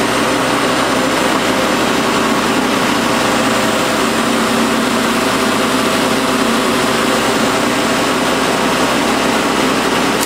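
Black & Decker Lawn Hog MM575 corded electric mulching mower's motor running steadily at full speed, with a strong hum and a whirring hiss. It is running on house power with a new rectifier fitted in place of the shorted one, so the repair is holding and the fuse is not blowing.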